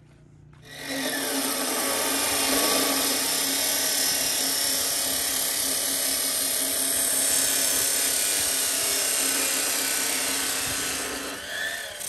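Hitachi abrasive cut-off saw (chop saw) starting about a second in and grinding through steel pipe, a loud, steady screech. It drops away near the end as the cut finishes.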